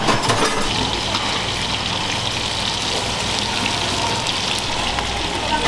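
Water running steadily, an even rush like a tap left on.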